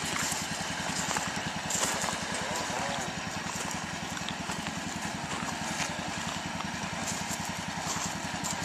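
Small lawn-tractor engine running steadily with a fast, even putter as the tractor, converted into a rail motorcar, creeps along the track.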